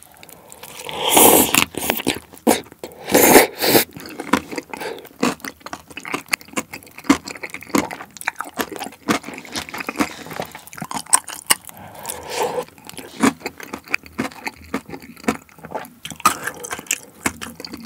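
Close-miked eating of spicy tteokbokki rice cakes: two loud slurps about one and three seconds in, then steady wet chewing with many small mouth clicks.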